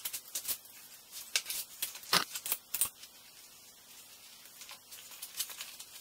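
Rustling and irregular scattered clicks of leather welding gloves being pulled on and handled, with a sharper knock about two seconds in as the loudest sound.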